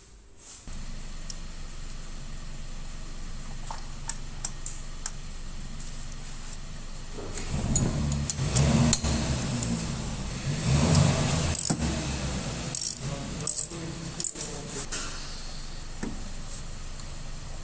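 Metal jangling and clinking, like keys or tools being handled, over a steady low hum that starts less than a second in. The jangling is loudest and busiest in the middle stretch.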